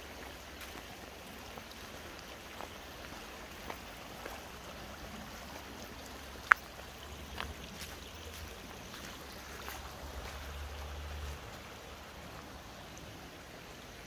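Small woodland stream running over rocks, a steady babble, with scattered light clicks and crunches from footsteps on fallen leaves. A sharp click stands out about six and a half seconds in, and a low hum comes in from about six to eleven seconds.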